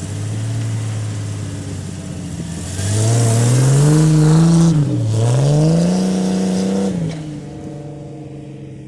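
1998 Jeep Wrangler TJ engine idling just after starting, then revved twice, the pitch rising and falling about three and five seconds in, before it settles back to a steady idle that fades away.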